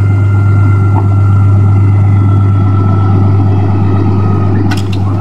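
Electric hydraulic pump motor of a Fisher Minute Mount snowplow running with a steady whine as the plow is cycled, over the low, steady idle of a straight-piped Cummins 6.7 diesel. The pump is moving the plow sluggishly, slower than it should, after low fluid and air in the system; a couple of short clicks come near the end.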